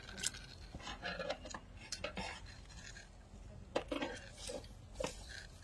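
Snake-catching hook knocking and scraping on the concrete pad under an air-conditioner unit: a few sharp, irregular metallic clinks.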